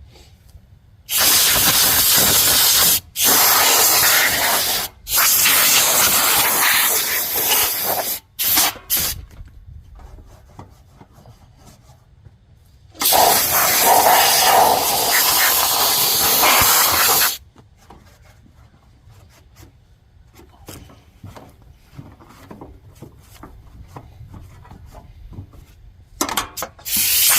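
Compressed-air blow gun blasting dust out of a kerosene/diesel forced-air heater: several long hissing blasts with short breaks over the first eight seconds, another long blast about halfway through, and short puffs near the end.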